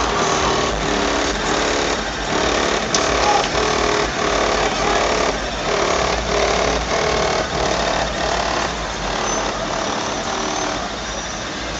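Loud music with a steady beat of about two a second, blaring from a car sound system, over a low rumble.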